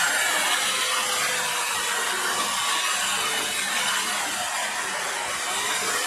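Small electric drill running, its thin bit boring out a hole in a printed circuit board. The noise is steady throughout.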